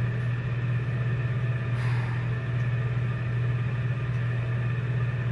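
Steady low mechanical hum, like a motor or ventilation unit running, with one brief soft rustle about two seconds in.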